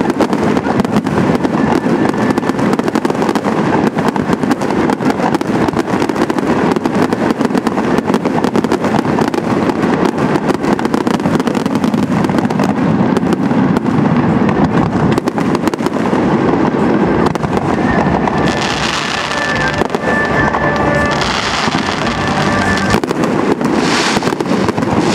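Fireworks display: a continuous rapid barrage of bursts and bangs, with sharper high crackling standing out in the last few seconds.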